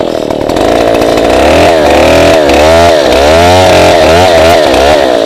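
A 070-type two-stroke chainsaw running loud at high revs, its engine speed dipping and climbing back again and again from about a second and a half in.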